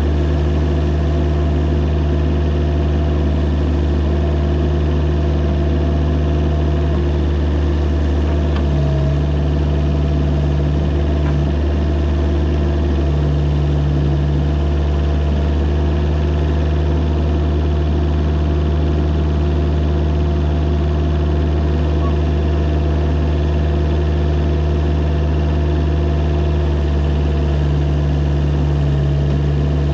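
Mini excavator engine running steadily, its note shifting briefly a few times.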